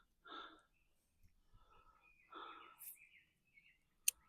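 Faint, heavy breathing of a man with chest congestion: a few soft, wheezy breaths. There are faint bird chirps and a short click near the end.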